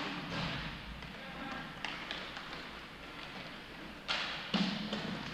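Inline hockey play: sticks, puck and boards knocking sharply, once about two seconds in and twice, louder, near the end, with faint shouts from the rink.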